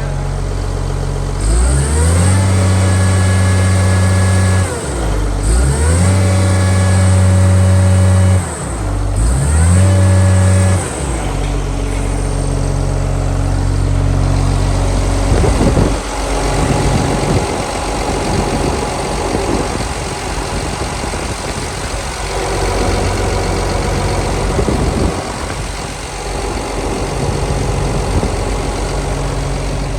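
Cummins diesel engine of a Volvo PF6170 asphalt paver revved up three times. Each time it is held at high speed for about three seconds and then dropped back. After about eleven seconds it runs on at a lower, uneven speed.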